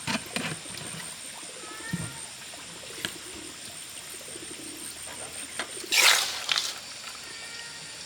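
Pork fat rendering in a pan, a steady faint sizzle with a few light clicks, and one short loud rasp about six seconds in.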